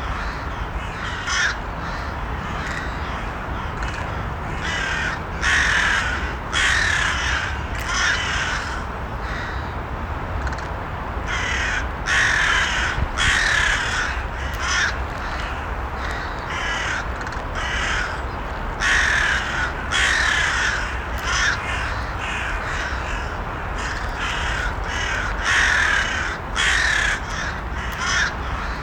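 Crows cawing over and over, in short runs of a few harsh caws with brief gaps between them, over a steady low background noise.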